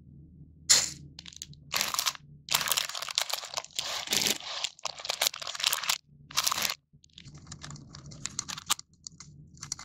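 Plastic wrapper of an individually packed choco brownie crinkling and tearing open in several loud bursts, then softer crinkling as it is pulled back.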